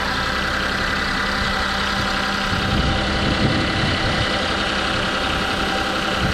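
Mitsubishi Minicab van's small three-cylinder engine idling steadily on freshly changed oil, with a short swell of low rumble about halfway through.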